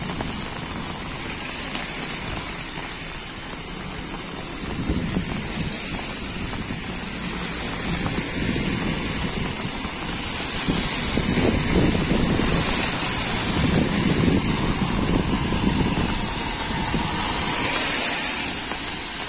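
Road traffic passing along a rain-wet street, with wind on the microphone. The sound is a continuous noise that swells a few times as vehicles go by, loudest about two-thirds of the way through and again near the end.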